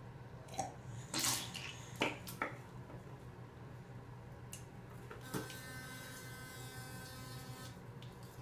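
A few short wet splashes from rinsing and spitting at the sink, then a children's electric toothbrush switched on with a click about five seconds in, buzzing steadily for about two seconds before stopping.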